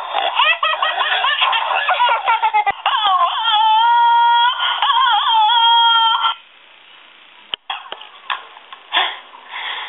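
A baby's rapid, high-pitched squealing giggles. About three seconds in these give way to long, held, wavering high cries. These stop abruptly after about six seconds, leaving only a few soft knocks.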